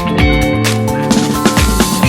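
Background music with a steady beat: upbeat electronic dance-style track with drum kit and bass.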